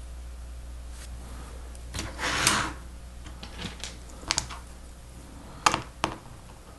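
Plastic Lego Technic pieces being handled and fitted together: a short rustle of parts about two seconds in, then a few sharp separate clicks near the end.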